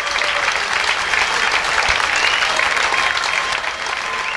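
Audience applauding steadily at the close of a live rock concert.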